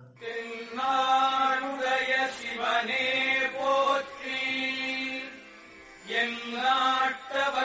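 Hindu devotional chant: a voice chanting a mantra in long held notes, dropping away briefly about five seconds in and resuming about a second later.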